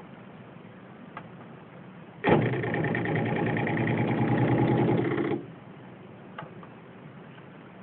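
Small electric motor of a homemade propeller-blade cat scratcher switching on about two seconds in, running steadily for about three seconds, then cutting off.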